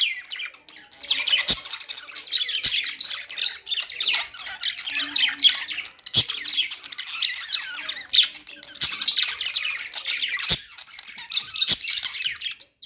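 Budgerigars warbling and chattering in fast, continuous runs of high chirps and squawks with short pauses between bouts, punctuated by a few sharp clicks.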